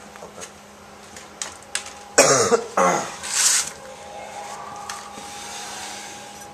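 A person coughs hard about two seconds in, followed by a short hiss. A steady hum with a thin higher tone runs underneath, and a few light handling clicks come before the cough.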